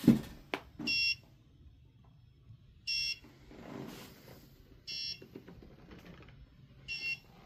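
Small piezo buzzer of an ESP32 freezer-door alarm beeping: four short high beeps, one every two seconds, the signal that the door-open timer has run out. A sharp knock right at the start and a smaller one about half a second in.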